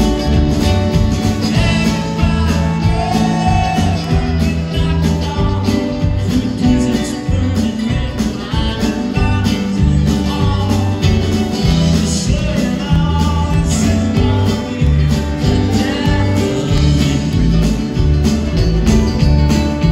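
A string band playing live on acoustic guitar, upright bass, fiddle, drums and keyboard in a steady groove, with a wavering melodic line over the top.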